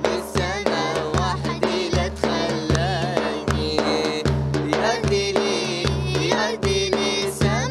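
A young girl singing a folk song, her melody wavering and ornamented, over a steady drum beat.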